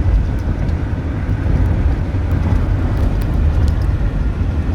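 Moving car, a steady low road-and-engine rumble.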